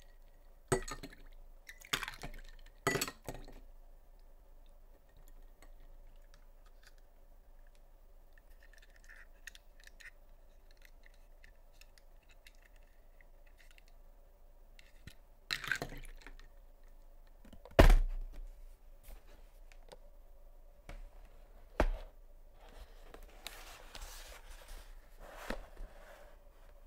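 Handling of a toy car and drinking glasses on a tabletop: a few sharp clicks and clinks, a louder single thunk about two-thirds of the way through and a smaller one after it. Near the end comes the rustle of a cardboard toy box being handled.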